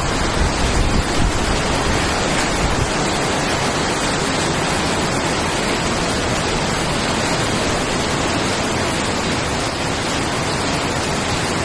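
Heavy rain pouring down in a steady, dense hiss, with some extra low rumble in the first few seconds.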